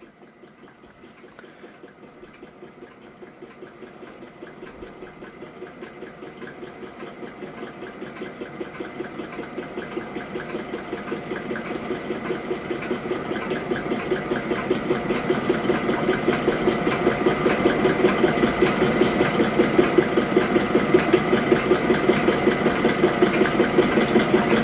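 A water-cooled model Stirling hot-air engine running under its own power, a fast, even mechanical rhythm from its pistons and flywheel linkage that grows steadily louder.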